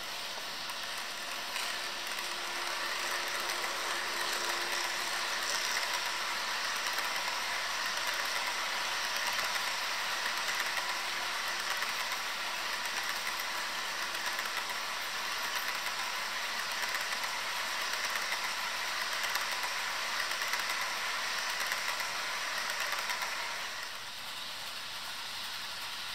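HO scale model freight train, an Algoma Central SD40-2 model locomotive pulling a string of grain hopper cars, rolling past on model track: a steady rattle and rush of small metal wheels on the rails and the locomotive's motor, dropping off near the end.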